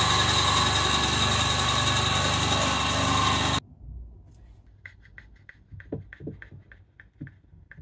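Benchtop bandsaw running and cutting through two hot-glued pieces of plywood, a steady loud whirr that cuts off abruptly about three and a half seconds in. After it, a run of faint quick clicks, about five a second.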